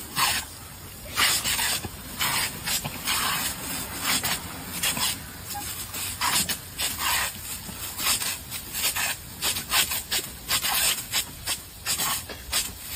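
Jet of water hissing from a sprinkler nozzle, rising and falling in many uneven spurts as dogs bite and lap at the spray.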